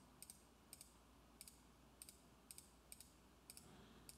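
Faint computer mouse clicks, about two or three a second and often in quick pairs, over near silence.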